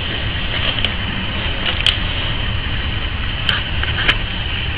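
Plastic mailer bag and plastic blister pack crinkling and clicking as they are handled, with four short sharp clicks, over a steady low hum and hiss.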